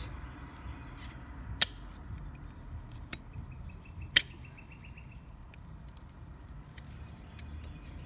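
Small metal tool clicking and scraping against a brake caliper while prying out the cotter pin that holds the pad pin. There are two sharp clicks, the first about a second and a half in and the louder one about four seconds in, with quieter ticks between them.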